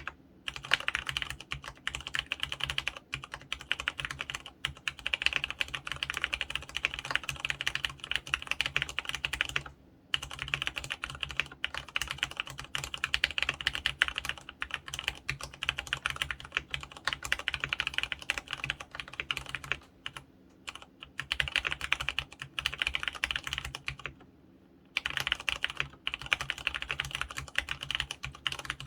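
Steady fast typing on an mStone Groove F mechanical keyboard with fully lubricated Clarion brown 35 g tactile switches: a dense run of key strokes, broken by short pauses about ten seconds in, around twenty seconds in and near twenty-four seconds.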